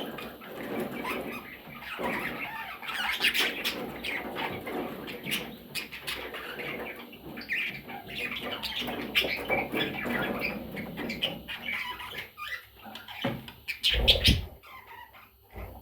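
A group of budgerigars chattering and chirping together, a dense stream of short squawks, warbles and clicks with some wing flapping. A loud thump comes near the end.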